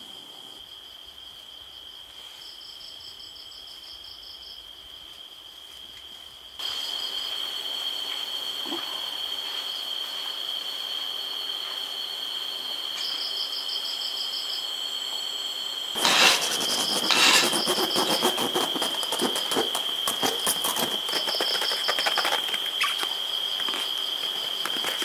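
Night insects such as crickets trilling steadily, with repeated pulsed chirps over the trill. About two-thirds of the way in, louder crackling and rustling with a few sharp knocks joins them.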